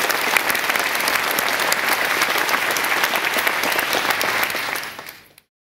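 Audience applauding, a dense clatter of many hands clapping that fades and then cuts off shortly before the end.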